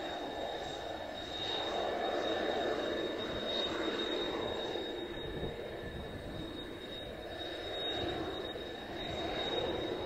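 Kawasaki T-4 jet trainer's twin F3 turbofans running as it rolls along the runway: a steady high-pitched whine over a continuous rushing roar, swelling and easing slightly as it passes.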